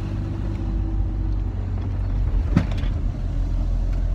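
Road noise heard inside a moving car's cabin: a steady low rumble of engine and tyres, with a single sharp knock about two and a half seconds in.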